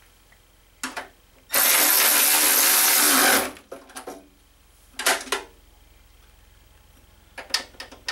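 Cordless power ratchet running for about two seconds as it drives a bolt, with a short burst of the motor before and another after, and a few sharp clicks near the end.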